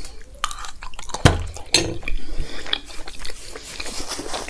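Close-miked wet chewing and mouth sounds of a mouthful of carrot halwa (gajar halwa), with a steel spoon set down into a steel bowl and a thump about a second in.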